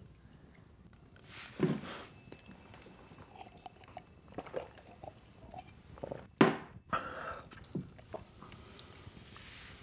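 A man drinking from a glass tumbler: a few short handling and swallowing sounds, then the glass is set down on a wooden table with a sharp knock about six and a half seconds in.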